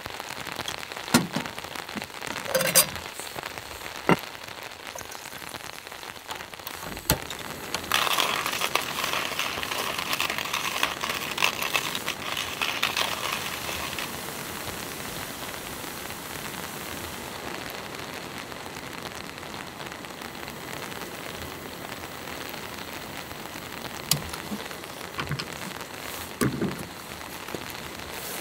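Steady rain pattering on a tarp overhead, with a few knocks and clicks as camp cooking gear is handled. A louder hiss rises about 8 seconds in and fades after about 6 seconds.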